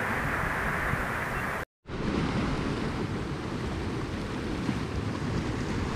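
Sea surf washing over shore rocks, mixed with wind on the microphone: a steady rushing hiss. It cuts out for a moment about two seconds in, then carries on deeper.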